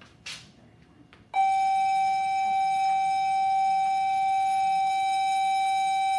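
A single loud, steady tone: one unwavering note with no wobble, starting abruptly and held for about five seconds before cutting off. A short hiss comes just before it.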